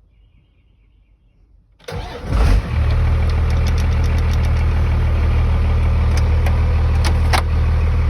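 Dodge W250's Cummins inline-six turbo diesel cranking briefly and catching about two seconds in, then settling into a steady idle, with a few sharp clicks over it near the end.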